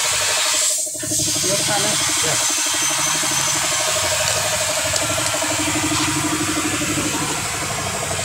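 Bajaj RE auto-rickshaw's single-cylinder engine idling steadily, a quick even pulsing under a steady hiss, with a brief dip about a second in.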